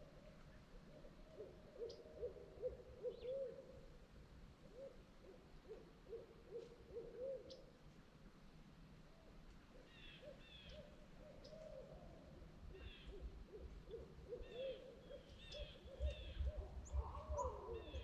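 Faint owl hooting: long runs of short hoots in quick series, pausing around eight to ten seconds in. Fainter, higher short calls from another bird come in over the second half.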